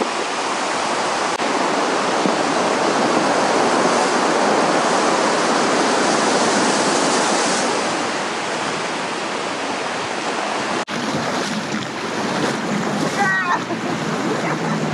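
Surf breaking and washing over a pebble beach, a steady rush of waves. About eleven seconds in it cuts to rougher water and wind noise on the microphone beside an inflatable dinghy.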